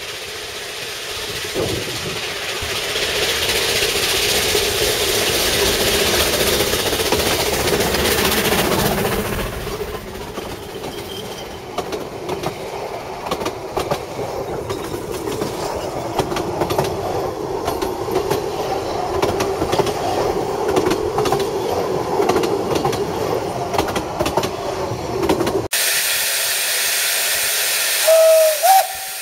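Two narrow-gauge steam locomotives, Palmerston and Linda, working a train close past, loudest in the first ten seconds. Their coaches follow, rolling by with a clickety-clack of wheels over rail joints. After an abrupt cut there is steady steam hiss from locomotives standing at a station, with a brief whistle near the end.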